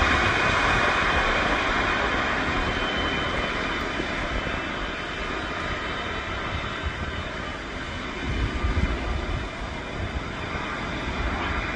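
Boeing C-17A Globemaster III's four Pratt & Whitney F117 turbofans running at taxi power as the aircraft turns on the ground: a steady jet roar with a thin high whine, growing quieter over the first several seconds. A few low gusts of rumble come about two-thirds of the way through.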